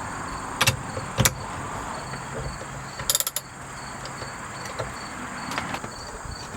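A 1/2-inch ratchet with a 22 mm socket working the steering wheel's centre lock nut loose: a couple of sharp metallic clicks, then a quick run of ratchet clicks about three seconds in, and another click near the end.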